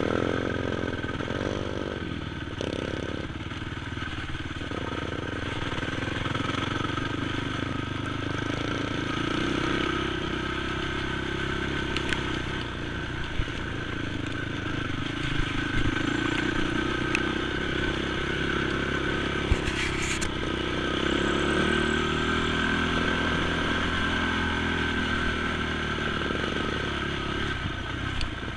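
Honda TRX450 sport quad's single-cylinder four-stroke engine running under load on a trail ride, its pitch rising and falling with throttle and gear changes. A few sharp clicks and knocks come through along the way.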